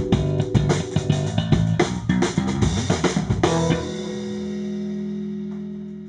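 Live funk trio of drum kit, electric bass and keyboards playing a busy groove; about three and a half seconds in the band stops on a held chord that rings on and slowly fades away.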